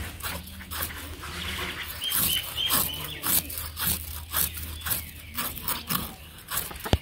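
Scales being scraped off a taki (spotted snakehead) fish against a serrated boti blade: a run of short rasping scrapes, a few a second.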